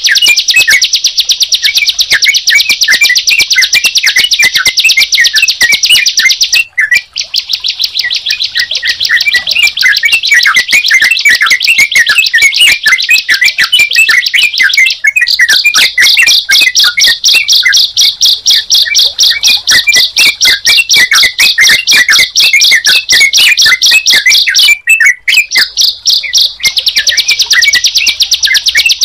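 Bird-song recording of a ciblek (bar-winged prinia) and a trucukan (yellow-vented bulbul) layered together: a loud, continuous, very fast high-pitched chattering trill with quick chirps beneath it. It breaks off briefly about seven, fifteen and twenty-five seconds in.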